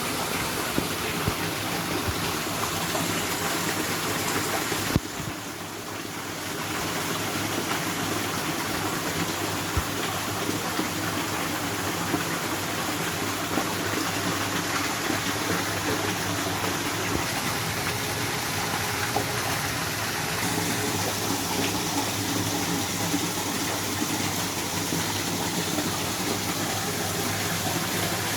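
Rushing water of a stream or waterfall, a steady even rush that drops briefly about five seconds in.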